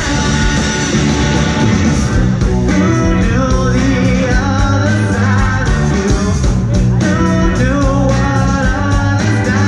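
Rock band playing live, with guitar and a singer's voice over the music.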